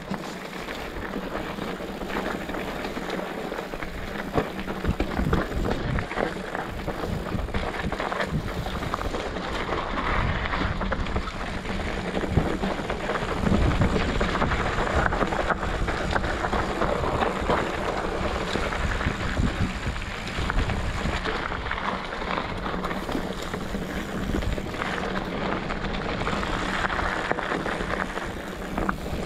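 Wind buffeting a moving camera's microphone, a continuous rush with low rumbling gusts and no pauses, as it travels along a dirt trail.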